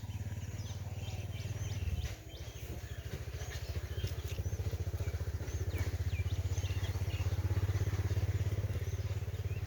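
A small engine running at a steady, fast pulse, briefly dropping off about two seconds in, with birds chirping over it.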